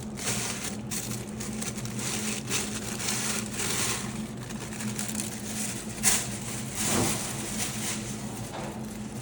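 Packaging rustling and crinkling as it is handled, in irregular bursts with a sharper crackle about six seconds in. A steady low hum runs underneath.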